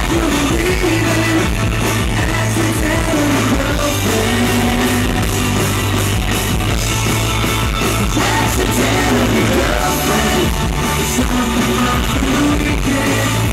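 Live rock band playing through a stage PA: electric guitars, bass guitar and drums, with singing.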